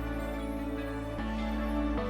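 Background music: a slow, soft electronic track with sustained chords and a low bass, changing chord about a second in.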